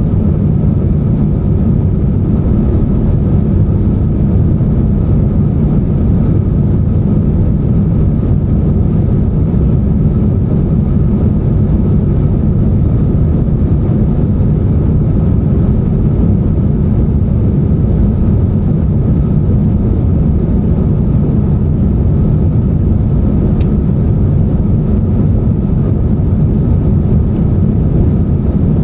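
Steady cabin noise of an Airbus A350-900 in its climb after takeoff: the Rolls-Royce Trent XWB engines and the rushing airflow make a deep, even drone with a faint steady hum above it. A single small click comes near the end.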